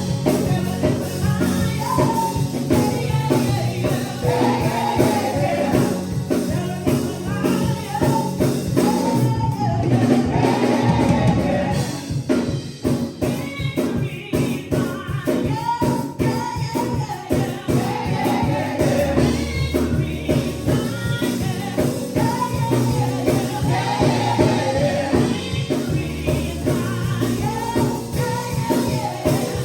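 Gospel choir singing over a band, with a drum kit keeping a steady beat and bass notes underneath.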